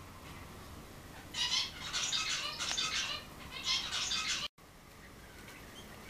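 A small songbird singing a fast run of high chirps and twitters, starting about a second and a half in and stopping abruptly at a cut near four and a half seconds.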